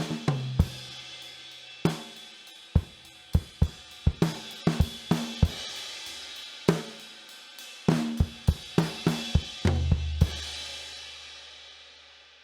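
Pearl Export drum kit played with hits and runs down the toms, snare, bass drum and cymbals. About ten seconds in it ends on a final crash with a low drum hit that rings on and fades away.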